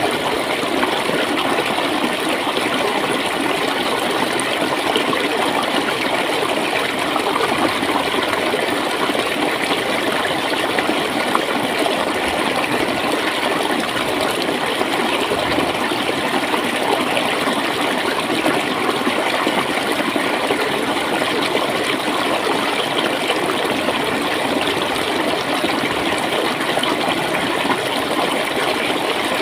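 Steady gurgling of clear flowing water, with no pauses or sudden changes.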